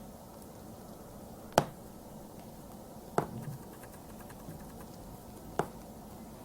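Three sharp clicks or taps, spaced roughly one and a half to two and a half seconds apart, the first the loudest, over a low steady hum.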